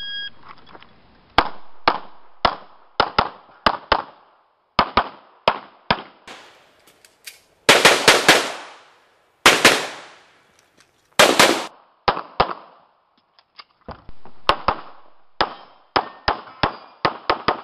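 Shot timer start beep at the very start, then a run of pistol shots fired mostly in quick pairs. Three denser, louder strings of shots come in the middle of the run.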